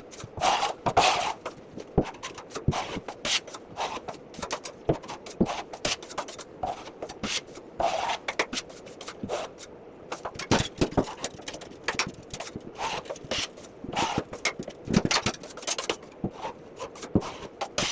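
Metal drywall knife scraping joint compound along a drywall seam: many short, irregular strokes and clicks.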